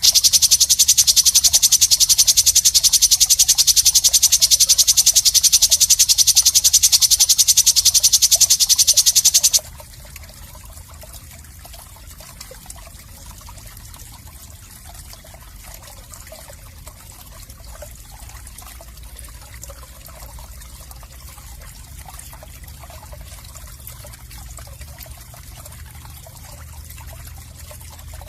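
A loud, high, buzzing trill of very rapid pulses, an insect-like call, cuts off abruptly about ten seconds in. A faint trickling, watery background follows.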